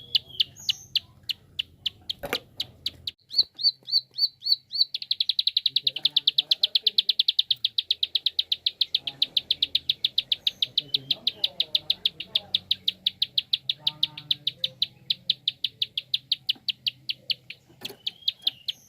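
Prinia (prenjak) giving its sharp 'klik' calls: clicks repeated a few times a second, then from about five seconds in a fast run of about ten clicks a second that later slows.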